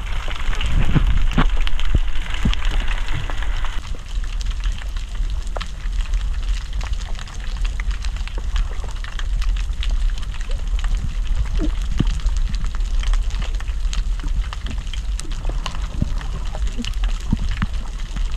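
Underwater sound: a steady low rumble and constant fine crackling clicks, with a hiss of moving water in the first few seconds. Scattered through it are short, sharp low knocks, which are a flying gurnard's sounds made to scare off the diver.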